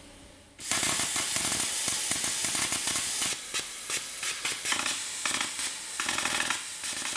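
Handheld plasma cutter firing up with a sudden loud hiss about half a second in and cutting through metal. From about halfway it sputters, cutting in and out in short stutters.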